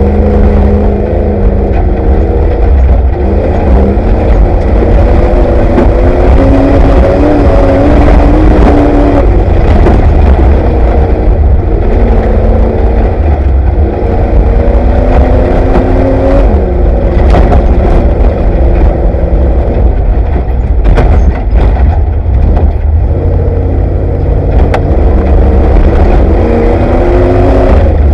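Off-road race car's engine heard from inside the car at race pace over a heavy low rumble, its pitch rising and falling again and again as it revs and eases off. A few sharp knocks come about two-thirds of the way through.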